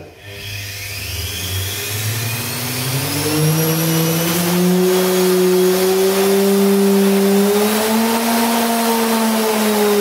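Washing machine's brushed universal motor running with no load on its shaft, driven from 220 V through a speed controller. Its hum rises in pitch as it speeds up over the first few seconds, then holds steady with a slight lift in pitch near the end.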